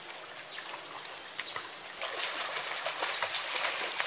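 Child swimming front crawl in a pool, his arm strokes and kicking feet splashing the water irregularly. The splashing grows louder about two seconds in.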